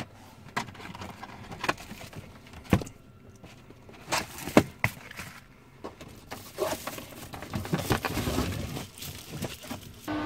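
Scattered sharp clicks and knocks, some close together, over faint background noise.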